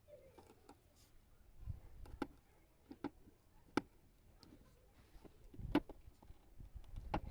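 Faint, irregular clicks and taps, with a couple of dull low thumps, about a second and a half in and again near six seconds.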